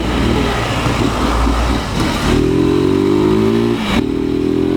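Motorcycle engine running: a rough low rumble at first, then held at a higher steady speed from about two seconds in, dipping briefly near the end before holding again.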